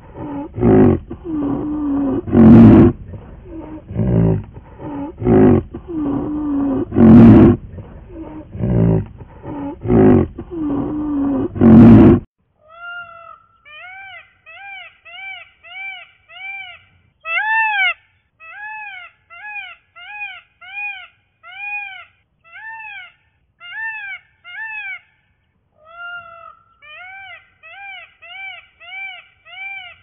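A greater one-horned rhinoceros calling over and over, loud, harsh calls about one a second, for the first twelve seconds. It then cuts off abruptly to a peacock's much quieter calls: quick runs of short rising-and-falling notes, about three or four a second, with brief gaps between runs.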